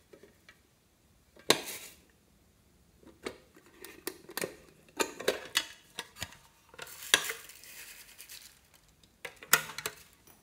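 Sharp clicks and clacks from a hard plastic case as it is unlatched, opened and handled, a few seconds apart, with a rustling pour of star-shaped glitter sequins shaken out of it a little after the middle.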